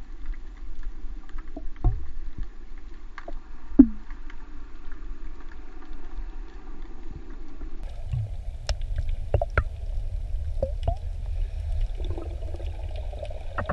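Muffled underwater sound picked up by a submerged camera: a steady low rumble of moving water with scattered sharp clicks and crackles, one stronger click about four seconds in. The rumble grows louder about eight seconds in.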